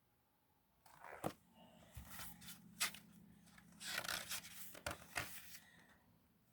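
Paper rustling and scraping as a picture book's pages are handled: a series of short rustles and a few sharp clicks, starting about a second in, over a faint low hum.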